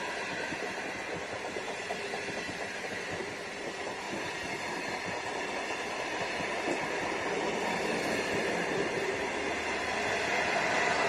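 Stainless-steel passenger cars of a long train rolling past at speed, a steady rumble of wheels on rail that grows louder toward the end.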